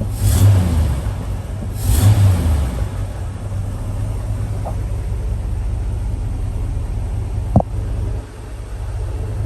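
Newly installed truck engine revved briefly twice, then running steadily at idle, with one sharp click late on. The owner thinks it has a lifter tick from a bad lifter.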